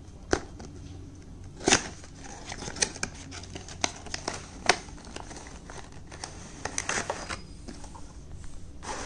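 Cardboard earbud box being handled and opened by hand: its sleeve and lid sliding, scraping and snapping, with a string of sharp clicks and short rustles and a busier patch of rubbing near the end.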